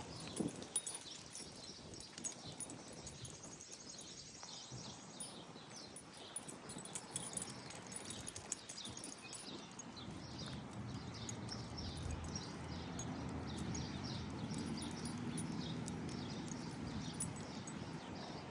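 Footsteps of a person and dog on a walk, a steady run of light steps, with a low rumble building from about halfway through.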